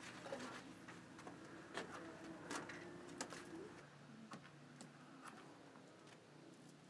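Quiet ambience: scattered light clicks and knocks over a faint steady low hum.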